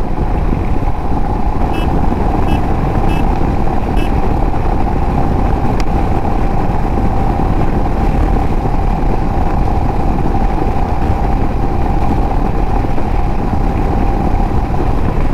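Royal Enfield Himalayan motorcycle running at a steady highway cruise: an even engine drone under steady wind and road noise.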